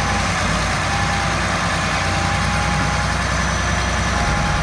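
Heavy diesel engine of a crawler tractor running steadily, with a thin steady whine over the low engine sound.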